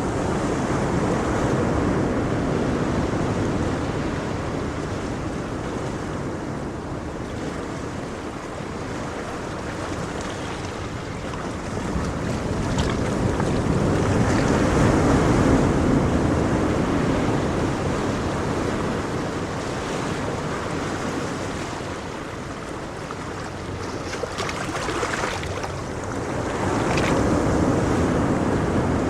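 Ocean waves breaking and washing ashore, the surf swelling and easing in slow surges about every 13 seconds.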